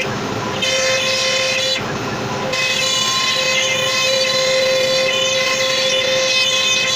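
CNC router spindle running with a steady high whine, briefly changing to a rougher noise near the start and again about two seconds in.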